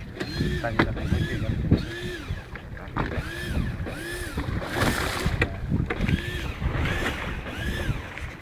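Hand-cranked conventional jigging reel being wound in against a hooked fish: its gears whine in a rising-and-falling arc with each turn of the handle, a little faster than once a second. Wind and water noise underneath, with a couple of sharp knocks.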